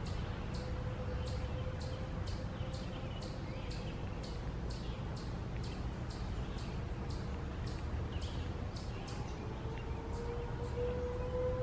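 Outdoor warning siren. Its steady tone fades out over the first few seconds, then a new tone rises slowly in pitch and grows louder from about eight seconds in. A regular high ticking, roughly two or three a second, sits over a low rumble throughout.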